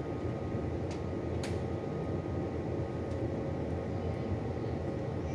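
Steady low machinery rumble and hum of a ship's bridge, with faint steady tones above it and a couple of light clicks about a second and a half in.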